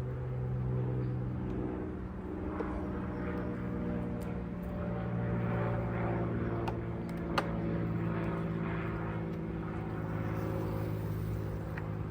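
Honeybee colony humming steadily in an opened hive, a drone of many wingbeats that shifts slightly in pitch. A few sharp clicks and knocks of the wooden hive parts being handled, the loudest a little past halfway.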